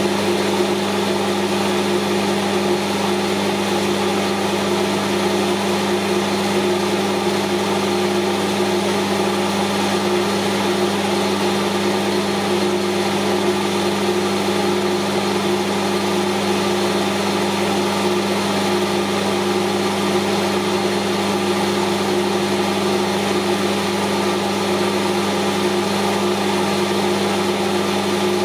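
Metal lathe running at a steady speed: an even motor-and-spindle hum with no change in pitch, while turning the puller plate down towards about 96.5 mm diameter.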